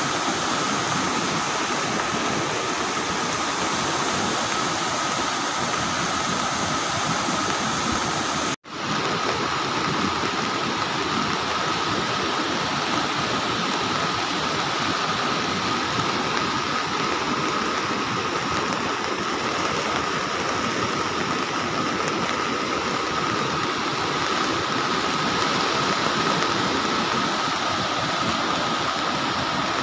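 Muddy flash-flood river rushing past in a heavy, steady wash of water noise, with a brief dropout about eight and a half seconds in.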